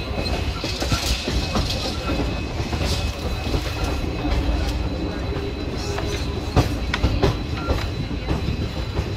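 Indian Railways express train running through a station yard, heard from an open coach door: a steady rumble of the wheels on the track with irregular sharp clicks as they cross rail joints and points, and a thin steady high tone.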